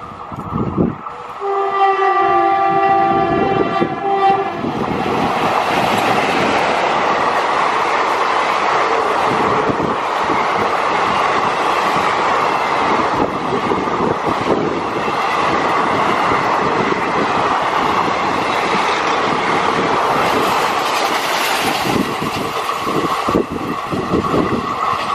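Indian Railways WAP4 electric locomotive sounds its horn, a steady chord lasting about three seconds. The passenger train then passes close by, its coaches rumbling and wheels clattering over the rails, easing off slightly near the end as it moves away.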